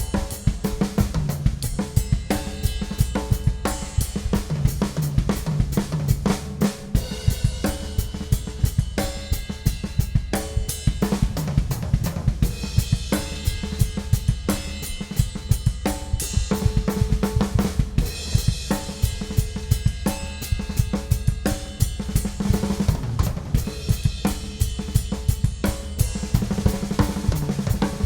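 Ludwig Classic Maple drum kit played continuously in a rock groove with fills: a 6.5 x 14 Supraphonic snare, maple toms and bass drum, hi-hat and crash and ride cymbals, with dense strikes throughout.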